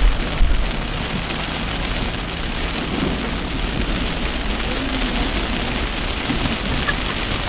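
Heavy rain drumming steadily on a moving car, heard from inside the cabin, over a low rumble of engine and road, with a brief thump just after the start.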